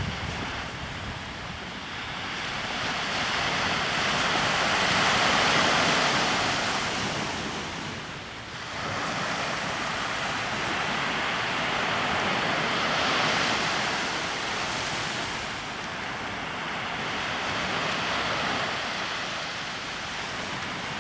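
Mediterranean sea waves breaking and washing up the shore, a steady rush that swells and fades in slow surges, loudest about five seconds in and dipping briefly before the middle.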